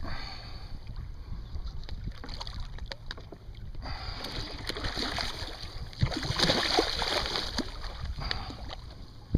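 Wind rumbling on the microphone and water lapping around a kayak, with a few light knocks about six seconds in.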